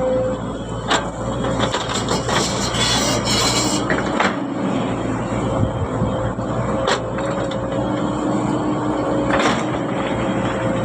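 Heavy earthmoving machinery at work: a diesel engine running steadily with a held hum, broken by sharp metallic clanks about a second in, a rattling spell a couple of seconds in, and single clanks near the end.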